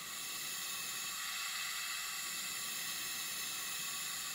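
Steady hiss of oxygen from a cylinder flowing through a Flow-Safe II+ disposable CPAP circuit and mask. It grows slightly louder about a second in as the flow is turned up to raise the CPAP pressure toward 10.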